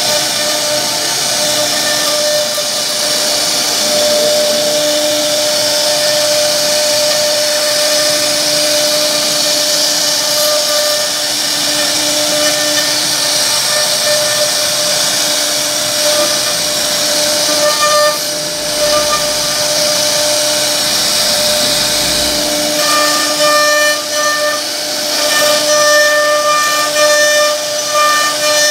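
CNC router spindle running at high speed while its carving bit cuts a relief pattern into a wooden panel: a steady whine with a strong high hiss. From about two-thirds of the way through, the higher whine pulses on and off as the cut changes.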